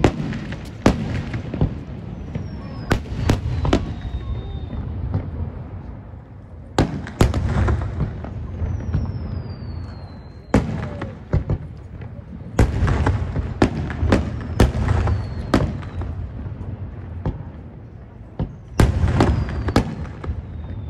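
Aerial firework shells bursting in quick, irregular volleys, each a sharp bang trailed by a low rumbling echo. A few falling whistles sound between the bursts.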